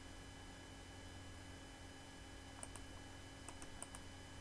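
A few faint computer mouse clicks, two of them close together about three and a half seconds in, over a steady low hum.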